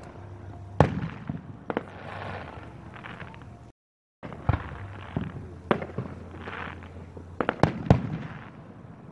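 A fireworks display: a series of sharp bangs from shells bursting, about seven in all and loudest near the start and near the end, with crackling between them. The sound drops out completely for about half a second just before halfway.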